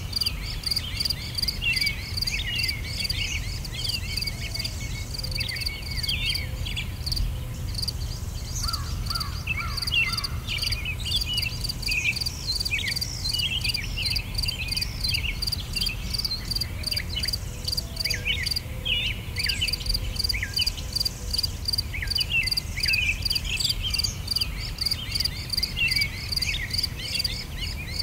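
Outdoor nature ambience: insects chirping in a fast, even pulse, with many short, sweeping chirping calls over a low rumble.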